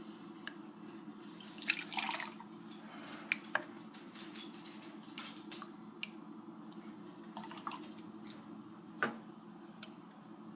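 Tomato soup being ladled from a pot into a bowl: liquid dripping and splashing in short pours, with a few light clinks of ladle and dishes, over a steady low hum.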